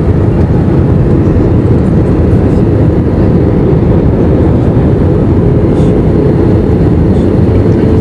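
Steady, loud cabin noise inside an Airbus A320 airliner in flight: engine and airflow noise with no breaks. A faint steady hum comes in about five seconds in.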